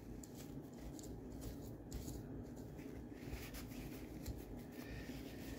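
Faint, irregular rubbing and light scratching of a paper towel wiping excess lubricant and dirt off the underside of a small plastic Tyco US1 slot-truck chassis.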